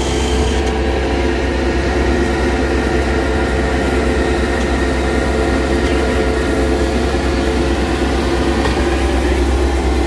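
Bobcat S205 skid-steer loader's diesel engine running steadily and loudly while the loader tips asphalt mix from its raised bucket.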